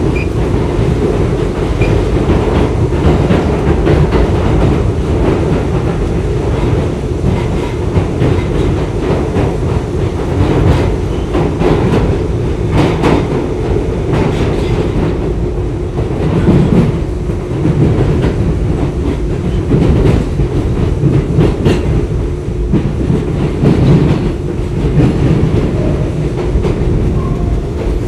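R62A subway car running on track, heard from inside the car: a steady rumble with a constant hum and repeated clicking of the wheels over rail joints.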